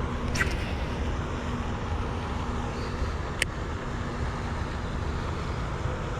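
Steady low outdoor rumble with a faint constant hum, broken by two short sharp ticks, one about half a second in and one a little past the middle.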